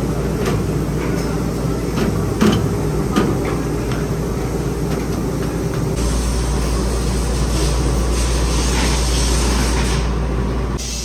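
Factory machinery running with a steady hum, with a few sharp knocks in the first few seconds. A deeper hum comes in about halfway through.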